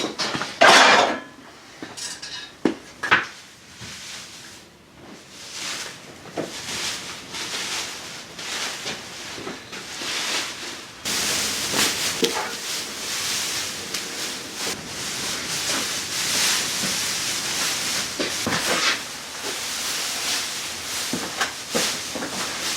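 Clinks and knocks of metal parts and tools being handled, then a steady rustling hiss that starts suddenly about halfway through.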